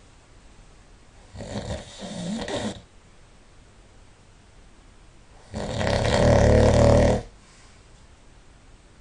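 A person snoring in deep sleep. There is a softer snore about a second and a half in, then a loud, low snore lasting about a second and a half a little past halfway, with quiet breathing between.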